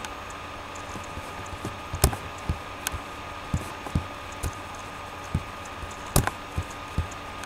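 Irregular clicks and taps of a computer keyboard and mouse, a dozen or so scattered strokes with a few sharper ones, over a steady background hum.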